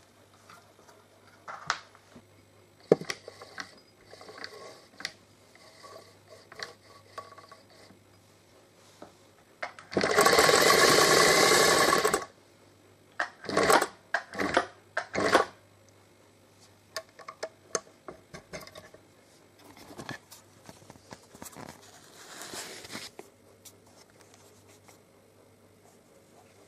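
Singer 185K electric sewing machine stitching fabric: one steady run of about two seconds near the middle, then several short bursts. Around these are scattered clicks and knocks from handling the fabric and machine.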